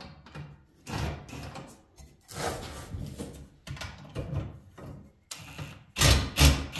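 Cordless impact driver run in about five short bursts on a bent screw of an electric motor's housing, its socket not seating well on the bent head. The last burst, about six seconds in, is the loudest.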